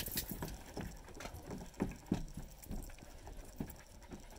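Dogs shifting about in the back of a van: irregular taps and scrapes of claws and paws on the hard floor, mixed with small clicks and rattles, with two louder knocks about two seconds in.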